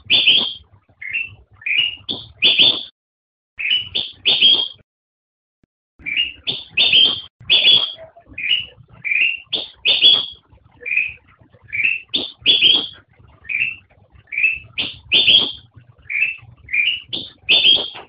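Kutilang emas bulbul (Pycnonotus melanicterus) singing: short phrases of two or three quick rising notes, repeated over and over, with a brief pause about five seconds in.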